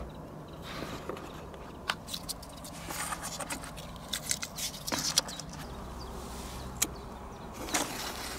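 Scattered light clicks, taps and short rustles over a faint low rumble: handling noise as small firecrackers are set out in a clear plastic bucket on sand.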